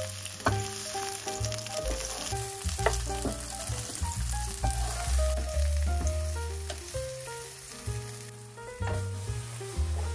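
Chopped red bell pepper sizzling in olive oil in a nonstick frying pan, stirred with a wooden spoon that now and then clicks against the pan. The sizzle weakens about eight seconds in, under background music.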